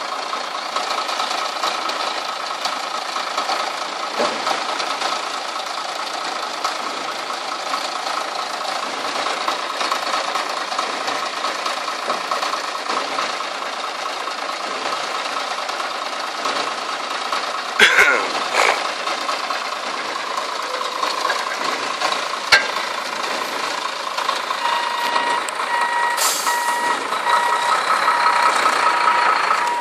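IVECO 440 hp dump truck's diesel engine running steadily while the raised tipper body is lowered on its hydraulic ram, with a couple of sharp knocks just past halfway. A reversing alarm starts beeping near the end.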